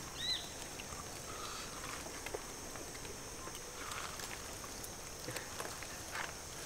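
Quiet outdoor ambience: a steady high-pitched hiss, one short high chirp about a third of a second in, and a few faint clicks.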